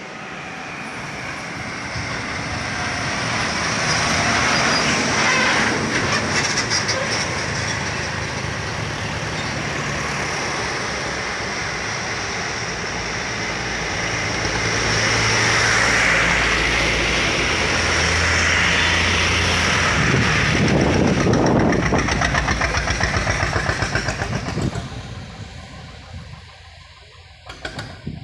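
Diesel engines of heavily loaded trucks working up a steep incline, one after another. The sound swells as the trucks draw close and pass, with a fast pulsing from the engines at the loudest point, then falls away about 25 seconds in.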